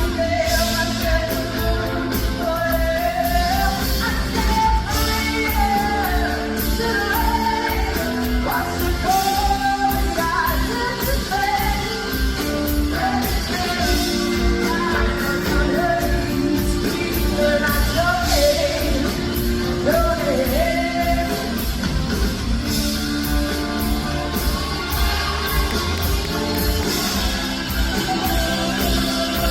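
Live concert performance: a female vocalist singing a pop ballad over a full band, with a steady drum beat and sustained chords beneath the melody.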